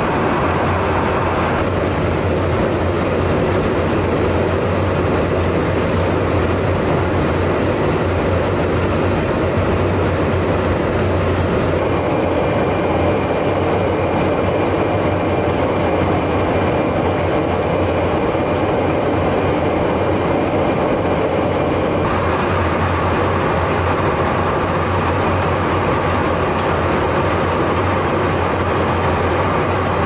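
Steady roar of engines and slipstream inside a KC-135 Stratotanker in flight, a constant low drone under rushing air. Its tone shifts abruptly about 2, 12 and 22 seconds in.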